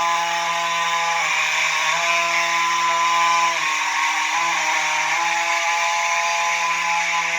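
Two Simplex fire alarm horns, a 4903-9220 and a 4901-9805, sounding together in a continuous harsh, buzzing blare. The two pitches waver and shift slightly a few times, and the owner says one horn was acting a little strange.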